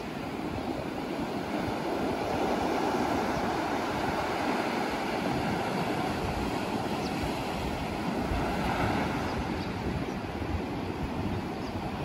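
Sea surf breaking over rocks and washing up the sand, a continuous wash that swells from about two seconds in, with wind buffeting the microphone.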